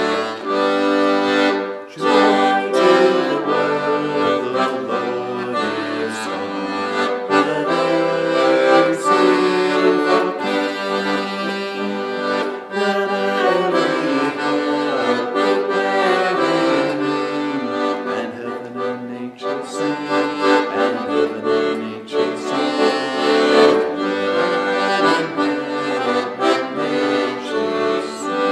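Instrumental seasonal song: a tune played over held chords, with the melody moving on top and no singing.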